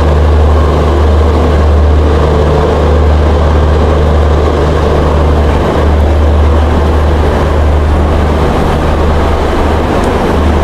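Steady low drone of an Indian Railways diesel train engine running, with a low, even hum and a rumble.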